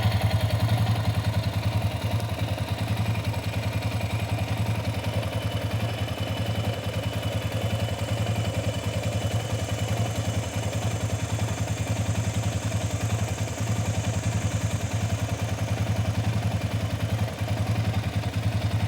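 Yamaha Raptor 700R's single-cylinder four-stroke engine idling steadily with an even, rapid pulse, warmed up after about five minutes at idle.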